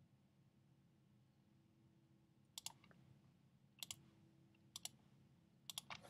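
Faint computer mouse clicks, several in quick pairs and threes through the second half, over a low steady hum.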